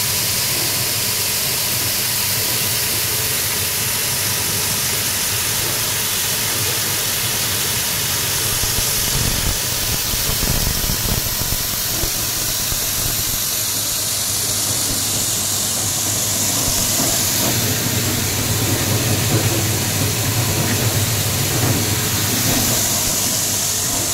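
Electric-motor-driven grain cleaning machine running steadily: a low hum under a loud, even hiss.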